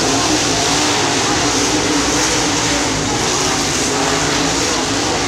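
A field of dirt late model race cars racing on a dirt oval: the steady, loud drone of several V8 engines at speed, their pitch wavering up and down as the cars go around.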